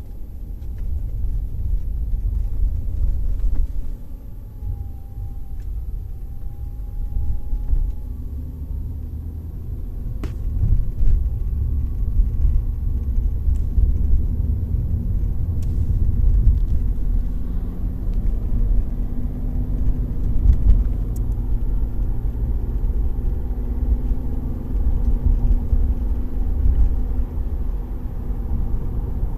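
Low rumble inside a BMW E90's cabin while driving, with a few faint clicks, the clearest about ten seconds in, and a faint wavering tone. This is the strange noise from the dashboard that the owner is showing.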